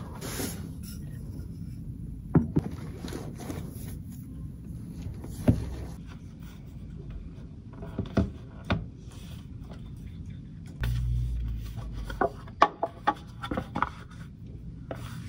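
Belongings being handled on a hard desk: a few sharp knocks and taps scattered throughout, with rubbing, and a short low rumble about eleven seconds in. Near the end a tablet's folio cover is being opened.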